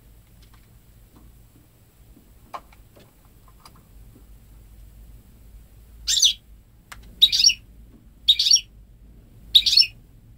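Goldfinch × canary hybrid (goldfinch mule) singing: a few faint short notes, then four loud, high-pitched bursts of song about a second apart, made up entirely of goldfinch phrases.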